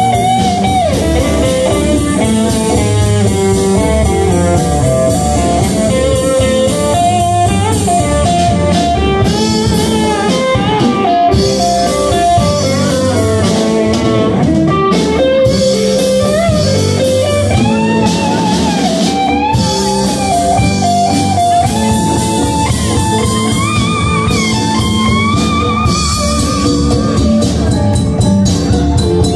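Live band playing, with electric guitar lead lines that bend and waver in pitch over a drum kit, bass guitar and congas.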